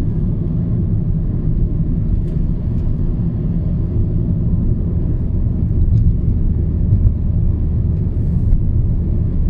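A car being driven at a steady speed: a continuous low engine and road rumble with no marked change in pitch.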